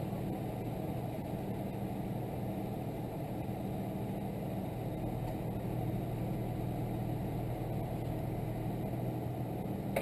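Mini bike's 212cc Predator single-cylinder engine idling steadily while the bike stands still, a low even hum.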